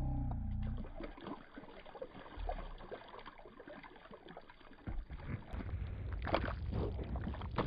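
River water sloshing and gurgling close to the microphone, with many small splashy ticks. Low rumbling on the microphone near the start and again from about five seconds in.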